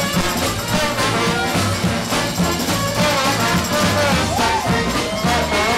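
New Orleans-style brass band playing a second-line tune live, with trombones and trumpet over a pulsing low bass line.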